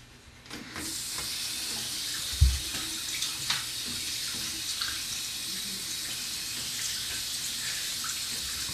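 Bathroom tap running steadily into a sink, turned on about a second in, during a rinse after tooth brushing. A dull thump comes after about two and a half seconds, with a few light knocks later.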